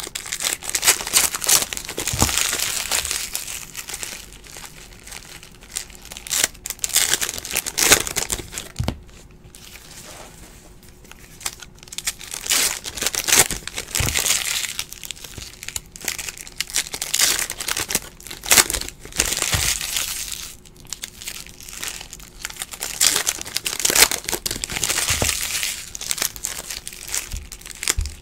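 Trading card pack wrappers crinkling and tearing open as they are handled, in repeated bouts with short lulls between, and cards handled with a few light knocks against the table.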